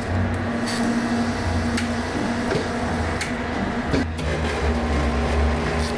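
Frozen-drink slushie machine running with a steady low hum, with a few sharp clicks of a plastic cup and dome lid being handled.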